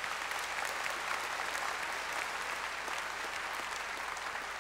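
Audience applauding, a dense steady patter of many hands clapping that begins to die down near the end.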